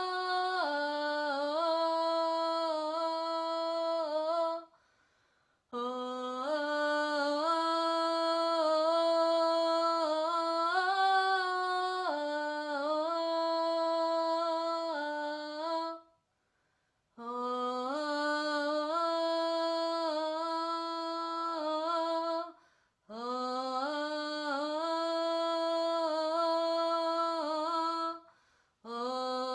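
A woman sings a wordless, humming melody in long, slow phrases. The notes step up and down around a fairly low pitch, with short pauses for breath about five, sixteen, twenty-three and twenty-eight seconds in.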